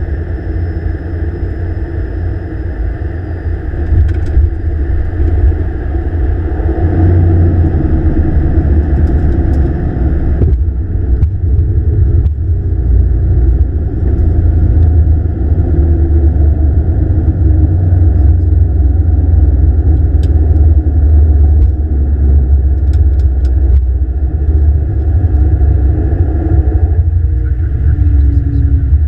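Heavy low rumble inside the cockpit of a Dash 8-Q400 rolling out on the runway after touchdown: its two Pratt & Whitney PW150A turboprop engines and propellers together with the wheels on the runway. The rumble swells a few seconds in, and near the end a tone slides gently downward as the aircraft slows.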